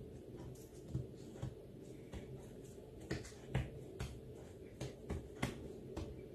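Hands pressing and smoothing an almond-filled roll of thin pastry sheet on a silicone baking mat, with faint soft taps and crackles scattered about once a second over a low steady hum.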